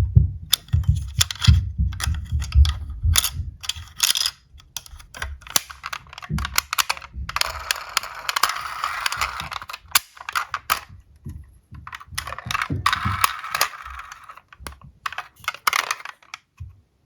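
Diecast toy cars clicking and clattering as they are handled and run down a slope, with dull knocks at first and two longer stretches of rattling as they roll.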